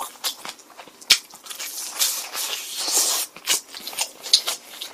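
Close-miked chewing of sauce-dipped fried chicken: crisp crunches and wet mouth clicks, denser and crunchier between about two and three seconds in.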